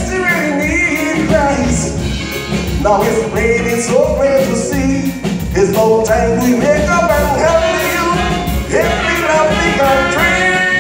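Live calypso band music: a man singing into a microphone over drums and band backing with a steady beat.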